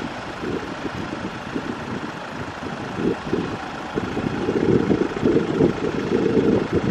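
Wind buffeting the microphone in gusts, heavier from about four seconds in, over the steady hum of a Boeing 787-8 airliner taxiing on idle engines.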